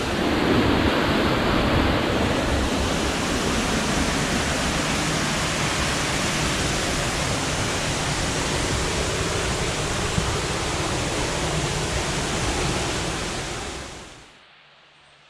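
Waterfall: a steady, loud rush of falling water that cuts off suddenly near the end.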